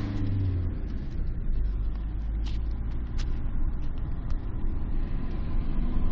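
Handling noise as fingers move over the camera: a steady low rumble, with two short clicks a little past the middle.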